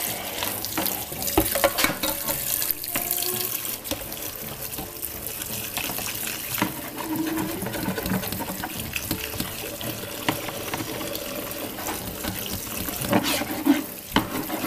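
Kitchen faucet running steadily into a stainless steel sink while a frying pan is scrubbed with a sponge, the pan now and then clattering against the sink.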